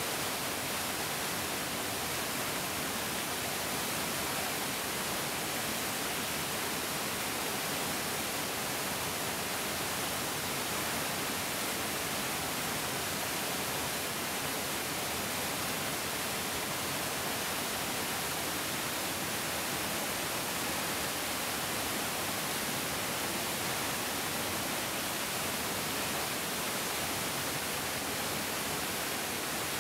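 Larger mountain stream flowing steadily: an even, unbroken rush of water, bright and hissy, with no single splash standing out.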